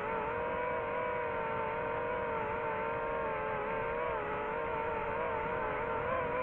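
Small quadcopter drone's propellers spinning with a steady multi-tone whine that wavers slightly in pitch, shifting near the end as the drone tilts and lifts off a table.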